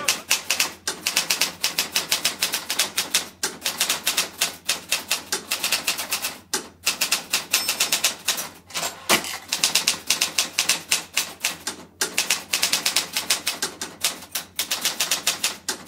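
Typewriter keys clacking as a sound effect, a rapid even run of keystrokes about ten a second, with brief pauses every couple of seconds.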